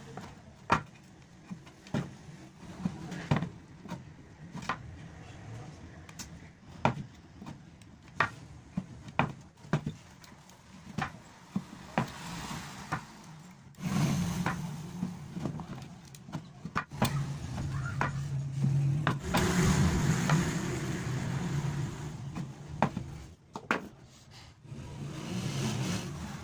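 Irregular sharp clicks and taps from hands working thread around a wooden cricket bat's handle. A steady low hum comes in about halfway and is loudest about three-quarters through.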